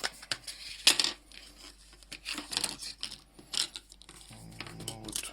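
Sharp clicks and light metallic rattles of small parts being handled and fitted together: the magnetic micro-USB adapter and its plug being assembled.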